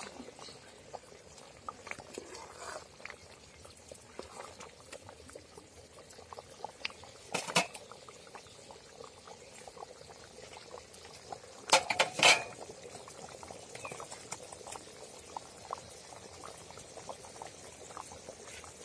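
Lemon juice and turmeric tempering boiling in a wide metal kadai: a steady soft crackle of bursting bubbles. Three sharp knocks cut through it, one a little before halfway and two close together just past halfway.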